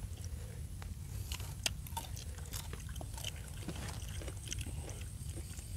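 People eating a meal: faint scattered clicks and chewing over a steady low rumble.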